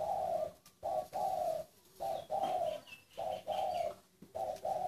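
A caged zebra dove cooing: repeated two-part phrases, a short note then a longer rolling coo, about one phrase a second. Faint higher chirps sound in between near the middle.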